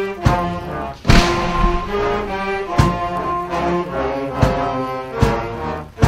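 Brass-led orchestra playing held chords, cut by several sharp bangs, the loudest about a second in.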